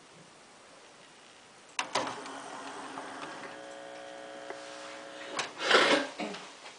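Sony CDP-C345 five-disc carousel CD changer opening its tray. Two clicks a little under two seconds in, then the tray motor and gears whirr steadily for about three seconds, and a click and a louder clatter come near the end.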